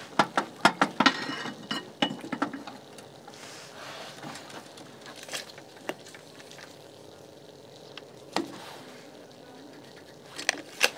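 Rusty square steel tube being handled against a cast-iron bench vise: a quick run of sharp metallic knocks and clinks with some ringing in the first couple of seconds, then a few scattered single clicks, two of them near the end.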